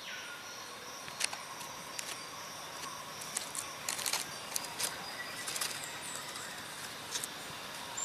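Forest ambience: a steady faint hiss with thin high tones, broken by scattered light clicks and taps at irregular intervals.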